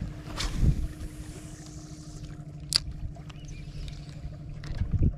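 Steady low hum of an electric trolling motor, with the swish of a spinning rod being cast about half a second in and a single sharp click near the middle. Low thumps of wind on the microphone near the start and the end.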